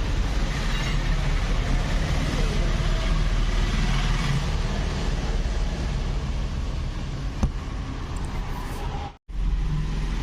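Steady background noise with a low hum, typical of workshop or passing-traffic ambience, with one sharp click about seven seconds in; the sound drops out for a moment near the end.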